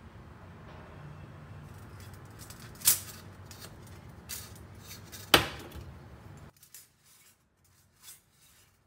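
Kitchenware being handled: small clinks and knocks of skewers and a stainless steel saucepan against a stainless steel steamer basket, with two sharper clinks about three and five seconds in. A low steady hum underneath stops abruptly after about six seconds.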